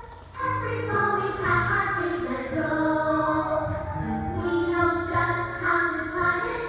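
A group of children singing a song together in chorus, holding sung notes, after a brief pause near the start.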